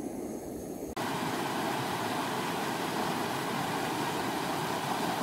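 A canister camping stove's burner running under a pot, a low steady rush, cuts off suddenly about a second in. A small stream running fast over rocks takes over, a louder steady rush of water.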